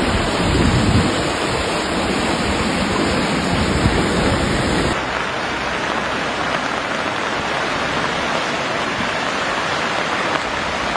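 Fast-flowing brown floodwater rushing in a steady, even wash of noise. About halfway through it changes abruptly to a lighter rush with less low rumble, the sound of a swollen river in spate.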